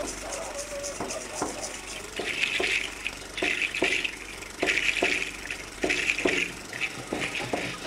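A hand rattle of dried seed shells shaken in bursts about once a second, its shells clattering, over sharp knocks about twice a second.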